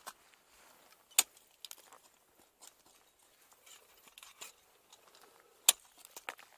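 Ice tool picks striking into waterfall ice, two sharp loud hits about four and a half seconds apart, with scattered light metallic clinks of climbing hardware between them.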